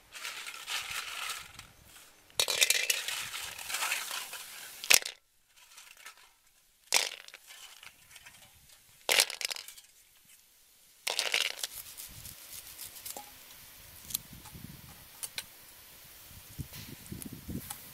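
Snail shells clattering and scraping against a hot iron wok in several short bursts, with a few sharp knocks, as they are tipped in and moved about. Near the end come faint snaps of green stalks being broken by hand.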